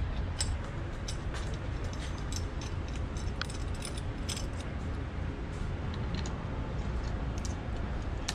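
Scattered light clicks and small rattles of hardware being handled while a stabilizer bar holder is fitted to a trolling motor mount, over a steady low background hum.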